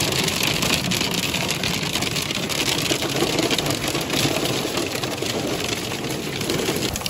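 Hail hitting a car's roof and windscreen, heard from inside the cabin: a loud, dense clatter of many small impacts over a deep rumble.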